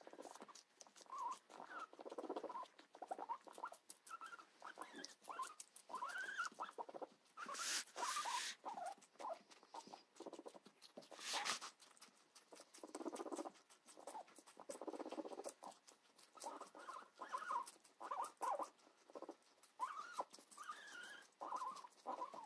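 Guinea pigs chewing cucumber, a stream of small crisp crunching clicks, with short soft squeaky calls between bites. Twice a brief hissing noise cuts in.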